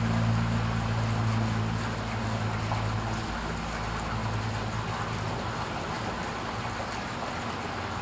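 Low engine drone of a passing vehicle, strongest at first and fading away about three to five seconds in, over a steady outdoor hiss.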